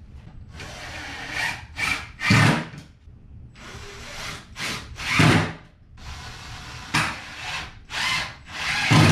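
Cordless drill-driver driving small Torx screws into a wood sheet to hold it down. It runs in three spells, each ending in a louder, deeper burst as the screw pulls tight.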